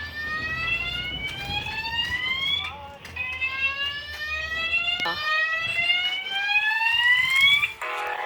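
Fire alarm sounding a slow-whoop signal: a tone that rises steadily in pitch over about two and a half seconds, repeated three times, then cuts off sharply near the end.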